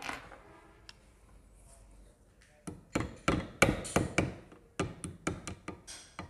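A flat metal tool tapping a three-pronged lock washer into place on a motorcycle gearbox, locking the washer so it cannot turn. From about two and a half seconds in comes a quick run of sharp metal taps, roughly four a second.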